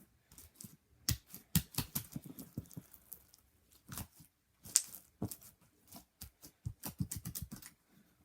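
Slime mixed with foam beads being squeezed and poked by hand, giving a run of irregular sharp clicks and pops.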